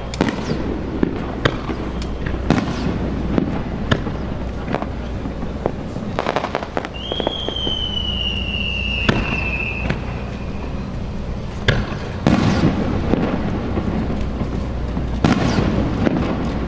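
Fireworks display: aerial shells bursting in sharp bangs at irregular intervals over a steady low rumble. A high whistle, falling slightly in pitch, sounds for about three seconds around the middle.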